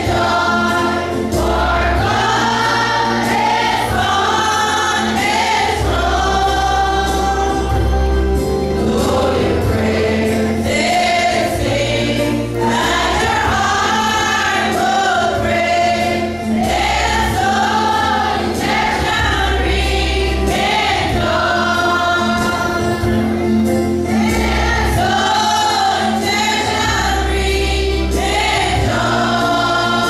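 Mixed choir of young men and women singing a gospel hymn together, over a low bass accompaniment that changes note every couple of seconds.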